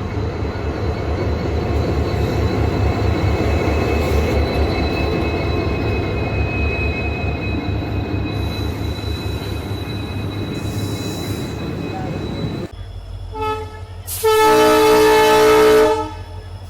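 WDP4D diesel-hauled passenger train running with a steady, loud rumble, faint high steady whines riding on it. After a sudden cut near the end, a short toot and then a loud horn blast of about two seconds, the loudest sound.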